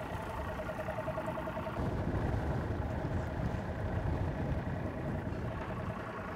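Boat motor running with a steady, pulsing hum that weakens after about two seconds, under a low wind rumble on the microphone.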